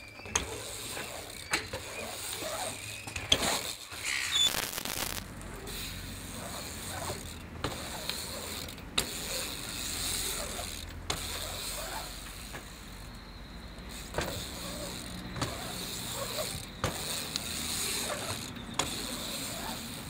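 BMX bike rolling and carving over the bare concrete of an empty swimming pool: a tyre-on-concrete rushing that swells and fades, broken by a dozen or so sharp knocks and clicks from the bike.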